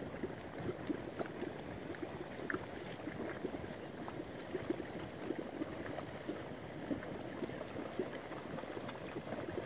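Geothermal mudpots bubbling: gas bursting up through wet mud in a continuous run of small, irregular low pops.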